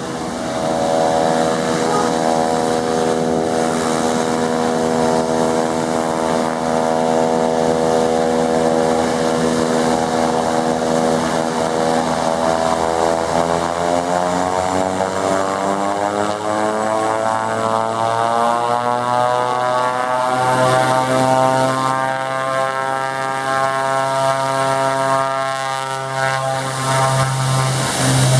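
Beechcraft King Air 250's twin turboprop engines and propellers at high power on takeoff: a loud, steady propeller drone whose stack of tones sweeps upward in pitch from about halfway through, then levels off.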